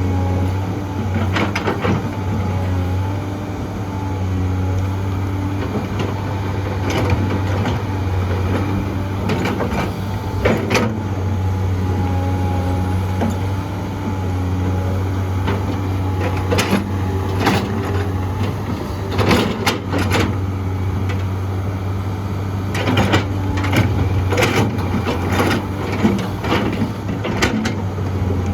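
Excavator's diesel engine running steadily under load, with repeated knocks and clatter from digging and loading dirt into a dump truck. The knocks come in several clusters.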